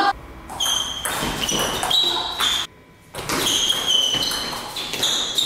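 Table tennis rally: the ball ticking sharply off the paddles and bouncing on the table in a quick back-and-forth, about two ticks a second, with a short gap about halfway through.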